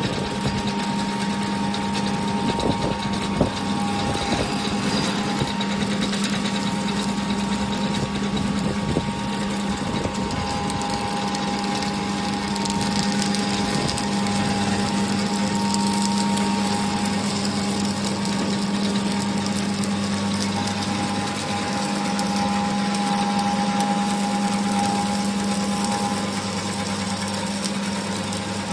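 Small snack-puffing food extruder running steadily under its electric motor, a constant hum with a higher whine over it, while the screw pushes out a continuous rope of puffed food.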